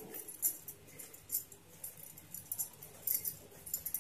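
Hands kneading soft steamed rice-flour dough in a steel plate, giving light, irregular crisp clicks.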